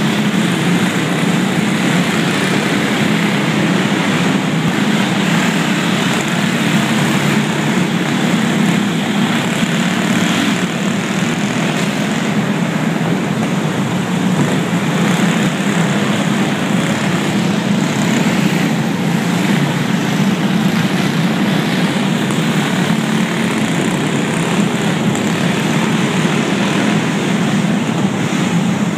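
Several go-kart engines running together at racing speed, a steady, continuous buzz.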